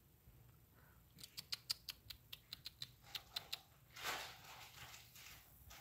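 A quick run of about a dozen faint, sharp clicks, about five a second, then a soft hiss about four seconds in that fades away.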